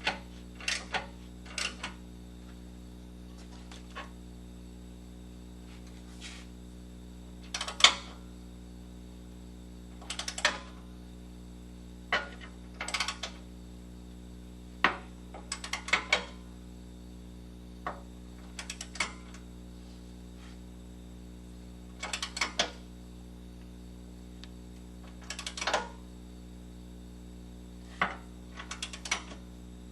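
Ratchet wrench clicking in short bursts of a few clicks every two to three seconds as a lower control arm bolt is tightened, over a steady low hum.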